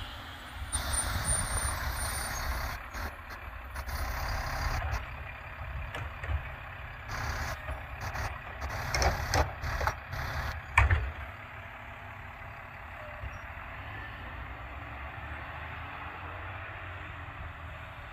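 Front-loader garbage truck's diesel engine running as the truck moves along the street, with scattered knocks and clanks. The loudest is a sharp bang about eleven seconds in, after which the engine sound is steadier and quieter.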